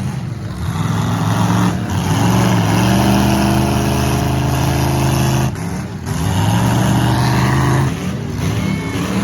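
Car engine revving, held high in long pulls with brief dips between.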